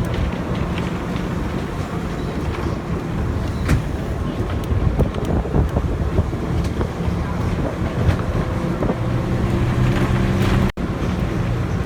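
A motor vehicle's engine running steadily, with wind buffeting the microphone.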